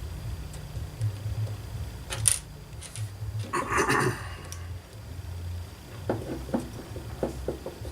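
Small metal engine parts and tools being handled: scattered clicks, light clinks and a brief scrape near the middle, over a faint low hum.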